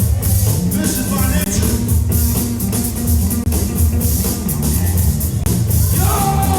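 Loud music with heavy bass and a steady drum beat, with guitar in it, played for breakdancers battling.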